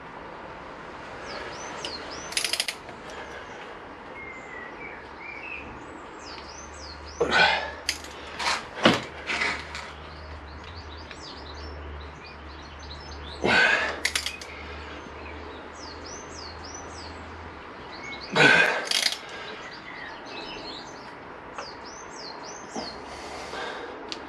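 Wrench work on the Suzuki SV1000's alternator rotor bolt as it is torqued up to 140 Nm: a few sharp metallic knocks and clatters, spaced several seconds apart, some in quick groups. Small birds chirp repeatedly in the background.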